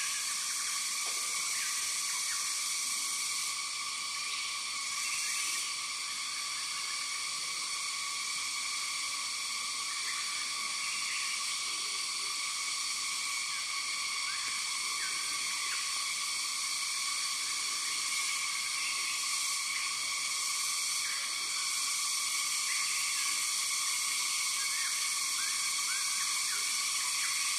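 Steady high-pitched insect drone of forest ambience, in several layered pitches, with short faint chirps scattered through it.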